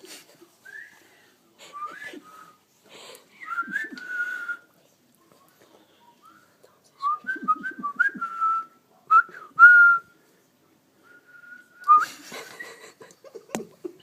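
Short whistled notes in scattered phrases, many rising or sliding, with a held whistle about nine seconds in; a few clicks and knocks near the end.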